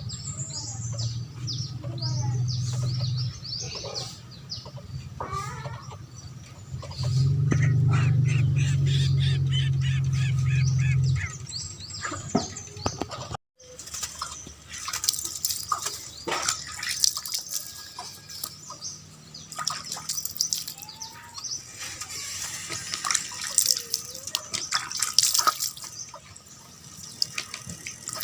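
Birds chirping over and over in short, high, downward-sliding notes. A loud low steady hum comes in twice in the first half, and the sound cuts out for a moment about halfway through.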